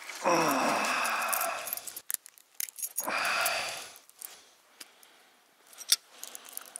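Small metal clinks of a steel dog chain and swivel ring being handled and worked with pliers. Two louder hissing sounds with a faint whistle in them come in the first four seconds, the first about two seconds long and the second about one.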